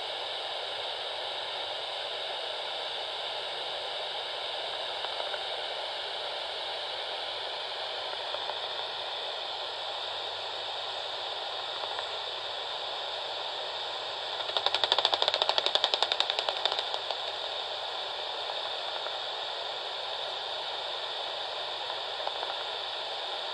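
Bat detector giving a steady hiss. About 15 seconds in, a bat's echolocation calls come through as a rapid rattle of clicks lasting about two seconds.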